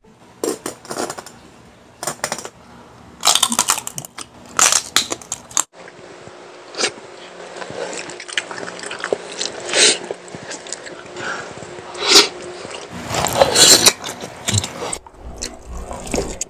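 Mukbang eating sounds: crunchy bites and chewing, with dishes and utensils clinking at irregular moments.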